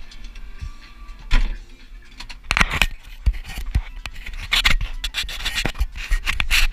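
Close scraping, rubbing and irregular sharp knocks from the GoPro being handled and moved to a new mount, over the low steady hum of the tractor engine.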